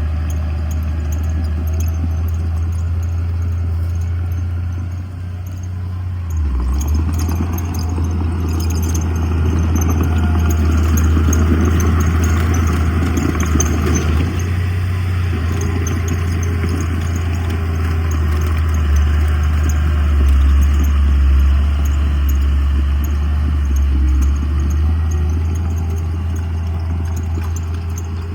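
Heavy diesel earthmoving machinery running steadily with a deep engine drone, growing louder and busier from about six seconds in to around halfway through, then settling back.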